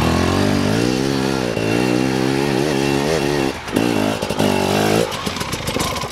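Enduro dirt bike engine pulling up a rocky climb, its pitch rising and falling with the throttle. It then gives two short throttle bursts about four and five seconds in, before dropping away.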